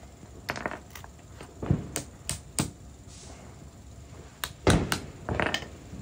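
Irregular sharp knocks and taps, about ten in all, coming in two clusters with a pause in the middle, from work on a sterndrive drive shaft's U-joints.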